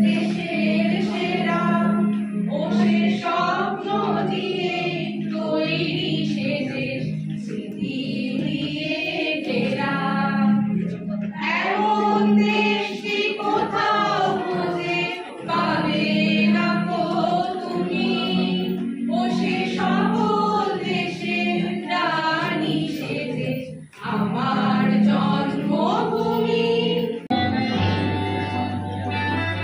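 A small group of adult voices singing a song together, mostly women with a man among them, over an electronic keyboard holding a steady low note. Near the end the singing gives way to instrumental music with plucked strings.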